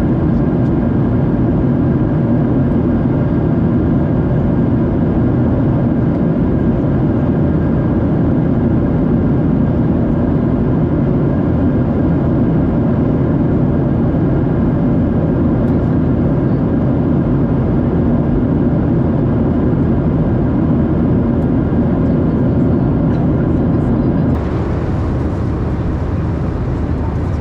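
Steady cabin noise of a Boeing 737-700 in flight, heard from a window seat: an even, low-pitched rush of engine and airflow noise with faint steady tones. A few seconds before the end it becomes slightly quieter and brighter.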